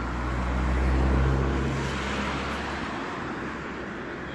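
A passing vehicle's engine: a low, steady hum with a rushing noise over it. It swells to its loudest about a second in, then slowly fades.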